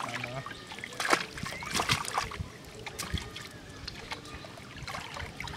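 Fish thrashing and splashing in shallow water crowded inside a hauled-in fishing net, with hands scooping through the water. Irregular splashes, the loudest about a second in.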